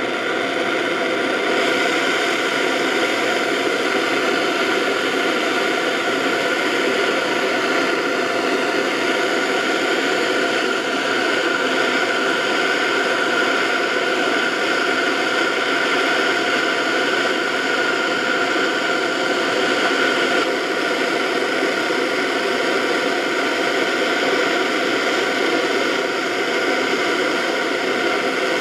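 Handheld gas torch on a gas canister burning with a steady, even hiss, its flame heating a steel cutting tool and carbide tip for silver brazing.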